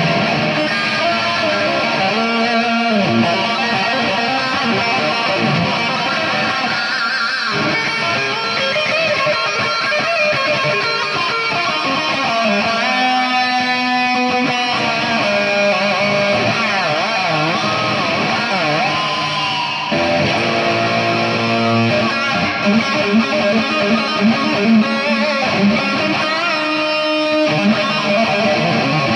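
Electric guitar playing, with held notes that bend and waver in pitch over lower sustained notes.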